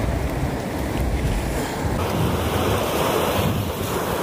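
Sea surf washing over and breaking against shoreline rocks, with wind rumbling on the microphone; the low rumble is heaviest in the first half, and the hiss of the water broadens about halfway through.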